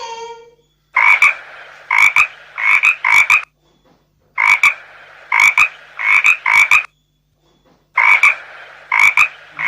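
Frog croaking: short, rasping croaks in runs of about four, repeated three times with brief pauses between the runs.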